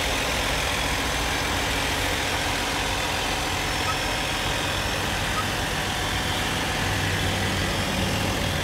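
Peterbilt semi truck's diesel engine idling steadily, a low hum under a steady hiss.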